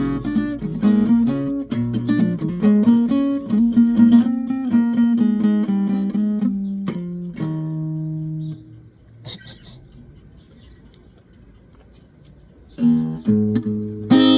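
Guitar played note by note in a picked melodic line, stopping about two-thirds of the way through and starting again near the end after a quiet pause.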